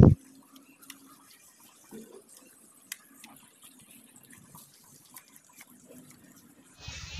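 Faint wet smearing and dabbing of a hand spreading wet cow-dung paste over a mud stove, with a few small clicks.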